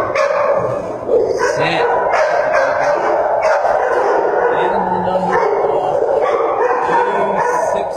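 Shelter dogs barking in a kennel row: a continuous din of many short, overlapping barks.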